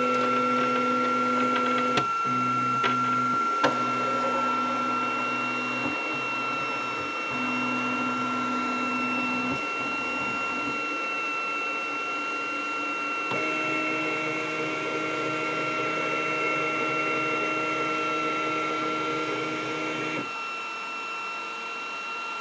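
Flashforge Adventurer 5M 3D printer starting a test print: its fans whine steadily while its motors hum in steady tones that change pitch in steps every few seconds as the mechanism moves. There are a few light clicks in the first four seconds.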